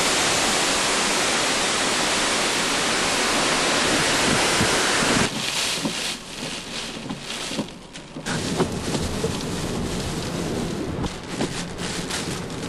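Hurricane wind and heavy rain in a steady, loud rush. About five seconds in it gives way to the quieter inside of a moving car, with rain pattering and tapping irregularly on the windows and windshield.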